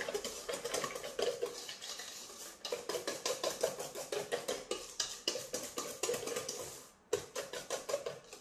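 Hand whisk beating egg yolks, sugar and cornstarch in a bowl: rapid metal clicking against the bowl, about four or five strokes a second, with a brief pause about seven seconds in.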